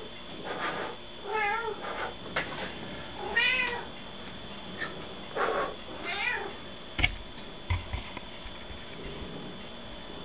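Domestic tabby cat giving three short meows, each answering a person's puff of breath, a brief blowing sound just before it. About seven seconds in there is a soft low thump, then a smaller one.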